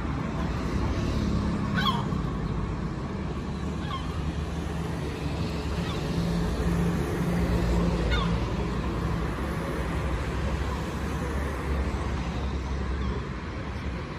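Waterfront outdoor ambience: a steady low rumble with a humming tone through the first half, and a few short bird calls about two, four and eight seconds in.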